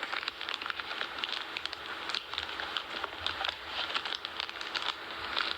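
Crackling, crinkling handling noise: many small irregular clicks and rustles, like items or packaging being handled close to the microphone.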